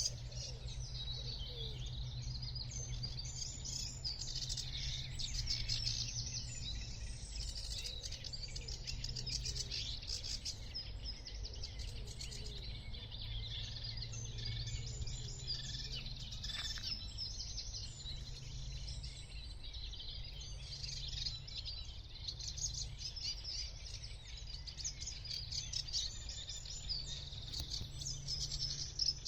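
Songbirds singing in a reedbed, many rapid, overlapping high song phrases without a break. A low steady hum runs underneath.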